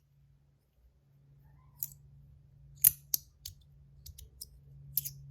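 Osseous Point EDC fidget slider worked by hand as a free floater, its metal parts and magnets clicking sharply about half a dozen times at uneven intervals, over a faint low hum.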